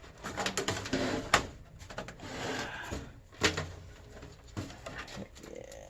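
Computer parts being handled: scattered clicks and knocks, two sharper knocks about one and a half and three and a half seconds in, with some rustling between.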